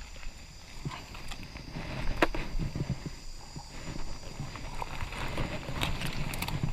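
Footsteps and rustling through forest undergrowth, with irregular snaps of twigs and leaves; a sharp snap about two seconds in is the loudest. A faint steady high-pitched drone runs underneath.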